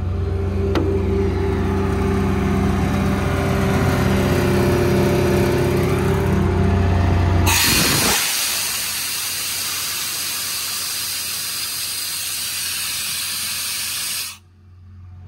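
Truck-mounted air compressor running with a steady hum. About halfway through, a lever valve under the service body is opened by hand and compressed air hisses out loudly, then cuts off abruptly near the end.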